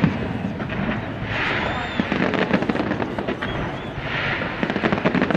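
Fireworks display going off continuously: dense rapid crackling with swelling bursts of noise about one and a half seconds in and again past four seconds.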